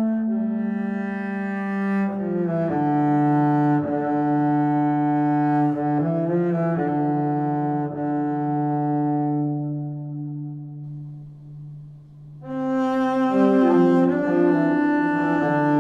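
Background music of slow, long-held notes that fade away about ten seconds in and come back louder about twelve and a half seconds in.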